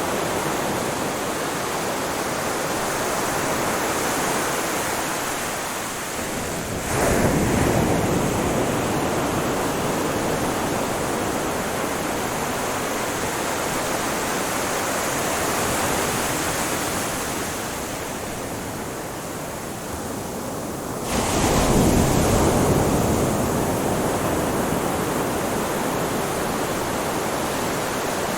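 Ocean surf on a shore: a steady wash of water, with a wave breaking about seven seconds in and another about fourteen seconds later, each surge swelling suddenly and then fading back into the wash.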